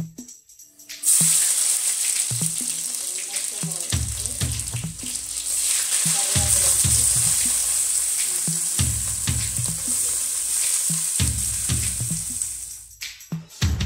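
Mustard seeds and green chillies sizzling in hot oil in an aluminium pot, with a loud, steady hiss that starts suddenly about a second in and stops near the end. Background music with a steady beat plays underneath.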